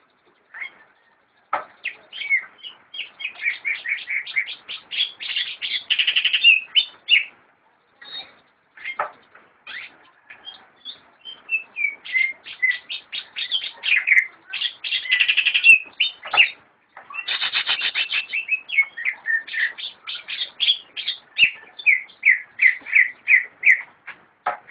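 Cucak ijo (green leafbird) singing: long runs of rapid, repeated whistled chirps, broken by short pauses about a third and two-thirds of the way through.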